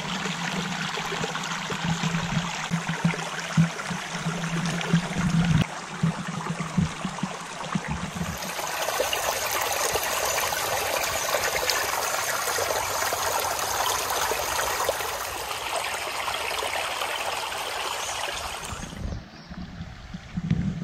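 Shallow creek water trickling and babbling over rocks, a steady rush that grows louder and fuller about eight seconds in. Near the end the water sound falls away to something much quieter.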